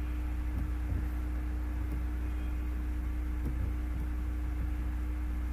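Steady low electrical hum with a faint tone above it and even background hiss, with a few faint light ticks: the recording's room tone between spoken sentences.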